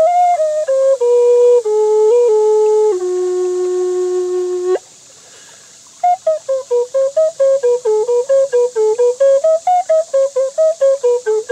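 Wooden Native American flute playing a slow melody of held notes that settles on a long low note, then after a pause of about a second a quicker phrase of short, rapidly repeated notes that wander up and down in pitch.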